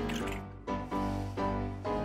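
Background music with a steady beat: chords of pitched notes changing about twice a second over a bass line.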